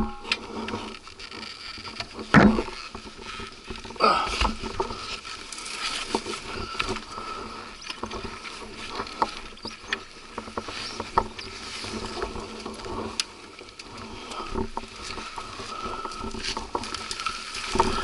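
Irregular scuffs, scrapes and knocks of boots, rocks and brush as a fallen dirt bike is dragged up a rocky slope by hand, with louder knocks about two and a half and four seconds in.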